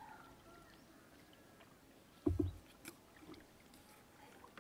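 A bamboo pole working a wooden river boat: one short, low double knock a little over two seconds in, over quiet river ambience.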